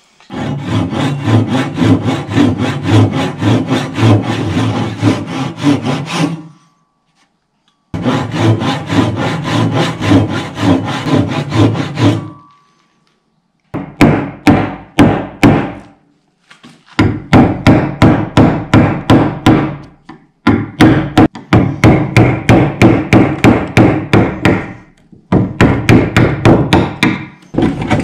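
Hand tool worked on wood in quick, regular strokes, about four a second, in five runs separated by short pauses.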